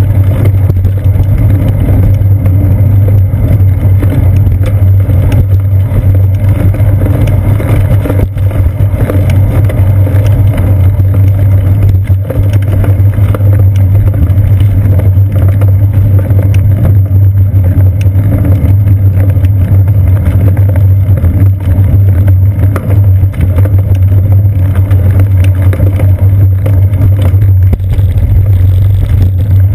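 Wind and road vibration picked up by a seat-post-mounted GoPro Hero 2 in its housing on a moving bicycle: a loud, steady low drone, with small knocks as the tyres roll over bumps and joints in the concrete sidewalk.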